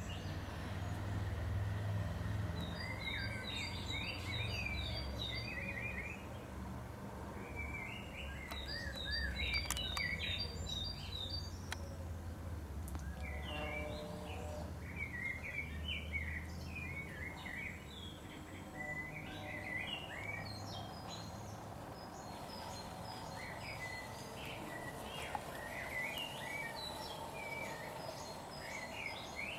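Songbirds singing repeated quick chirping phrases over a low steady rumble that fades about two-thirds of the way through.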